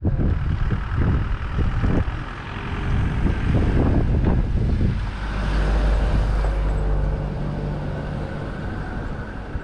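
Wind buffeting the microphone in gusts over a low engine rumble. About halfway through, the rumble settles into the steady hum of an idling engine.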